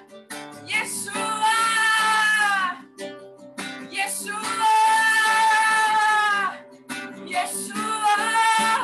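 Worship music: a single voice sings three long held phrases over strummed acoustic guitar chords. Each phrase swells in and falls away at the end.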